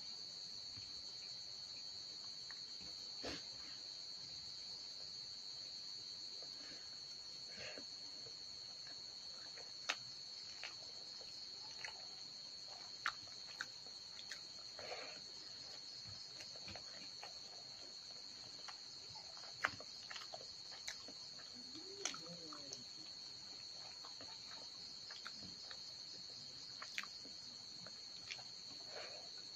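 Crickets chirping in a steady high trill, with scattered short clicks and smacks from rice being mixed and eaten by hand from a steel bowl.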